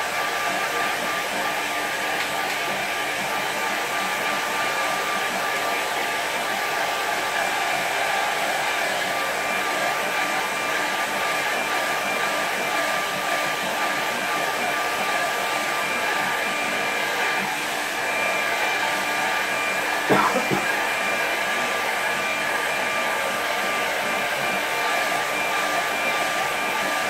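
Handheld hair dryer running steadily, blowing air onto a wet watercolour painting to dry it: an even rush of air with a steady fan whine. About twenty seconds in there is one brief knock.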